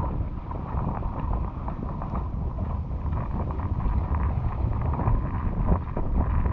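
Wind buffeting the microphone on a boat at sea: a steady low rushing rumble, with a faint steady whine underneath.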